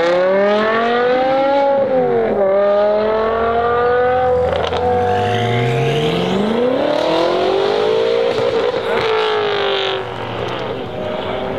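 BMW saloons accelerating hard away one after another. The first engine revs up, dips briefly at a gear change about two seconds in and climbs again. A second car revs up from low about five seconds in and climbs steeply before the sound falls away.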